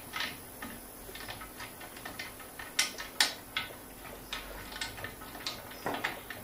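Light, irregular clicks and ticks of a nut being screwed by hand onto a threaded stud through the chandelier's glass panel, with two sharper clicks about three seconds in.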